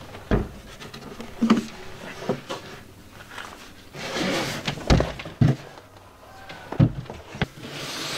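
Wooden cabinet box bumping and sliding as it is carried into a bus and pushed into place: a run of irregular knocks and thumps, with short scraping rasps about four seconds in and near the end.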